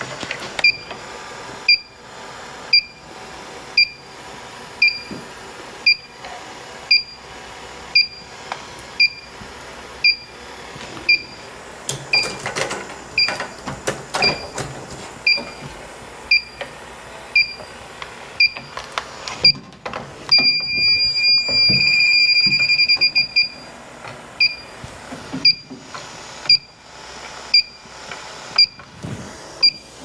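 Electronic refrigerant leak detector beeping steadily, a short high chirp about every 0.7 seconds. About two-thirds of the way through it holds a continuous tone for about three seconds, then goes back to the slow chirps. Light clatter of handling in between.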